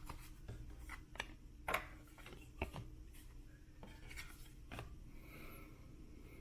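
Trading cards being handled and flipped through: soft rubbing and sliding with several light clicks.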